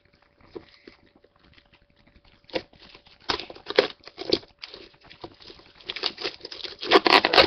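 Plastic and paper packaging being torn open and crumpled by hand: irregular bursts of crinkling and rustling that grow denser and louder toward the end.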